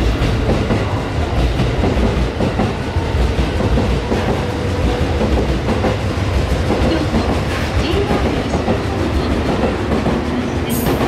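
Commuter electric train running along a station platform: a steady rumble of its wheels on the rails, with a clickety-clack over the track joints.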